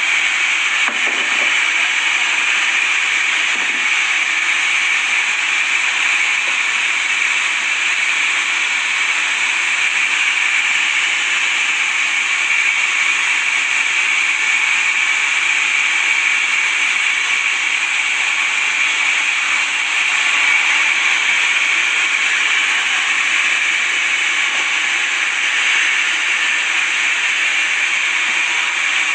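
Sawmill blade cutting through wood, a steady, unbroken hiss.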